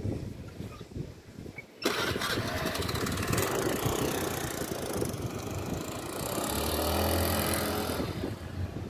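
Motor scooter engine starting about two seconds in and running, with a steady engine hum as it pulls away near the end.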